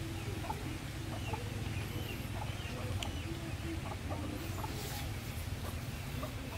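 Chickens clucking in short, scattered calls, with a couple of high bird chirps and a steady low hum underneath.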